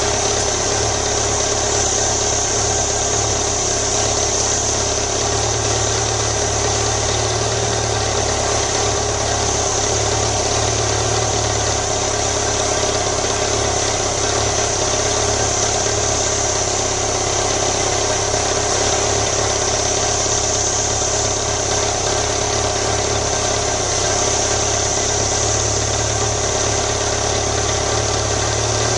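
BMW motorcycle engine idling steadily.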